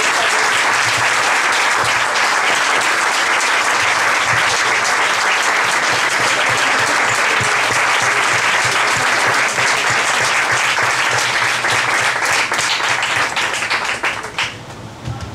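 Audience applauding: dense, steady clapping from many hands that thins out and fades near the end.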